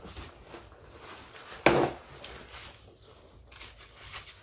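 A shipping box being unpacked by hand: rustling and light clicks of handling, with one sharp knock about one and a half seconds in.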